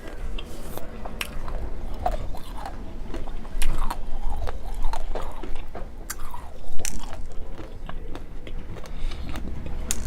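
Close-up chewing of Nerds Rope candy, its crunchy coating crackling between the teeth in a run of irregular, crisp crunches.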